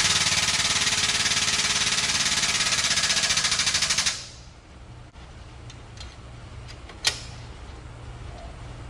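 Strongway 50-ton air/hydraulic shop press's air-driven pump running with a loud, rapid rattle for about four seconds as the ram presses a dimple into an aluminum baffle plate, then cutting off. A short sharp burst follows about seven seconds in.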